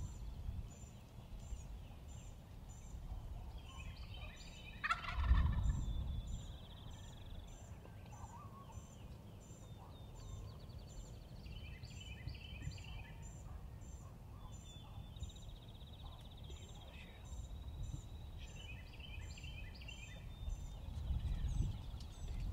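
Rio Grande wild turkey tom gobbling once, a loud, fast, falling rattle about five seconds in. High chirps and trills repeat steadily behind it.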